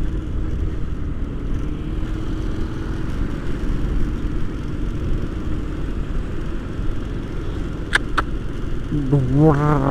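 Motorcycle riding noise: engine and road noise as a steady low rumble. Two sharp clicks about eight seconds in, and a voice begins near the end.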